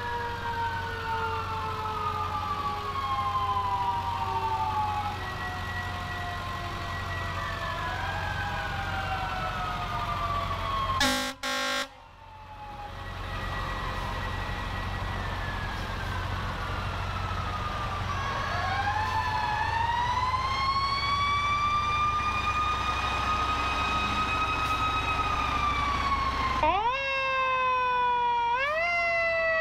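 Sirens of passing fire trucks sounding together, several slow falling wails overlapping over a low engine rumble. A brief horn blast comes about eleven seconds in; later one siren winds slowly up, holds a steady pitch and falls away, and near the end a siren switches to quick repeated rising sweeps.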